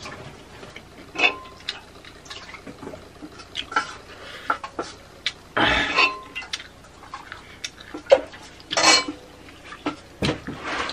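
Fingers mixing and scooping rice on a metal plate: scattered soft scrapes and light clinks against the plate, with two louder short bursts about halfway through and about nine seconds in.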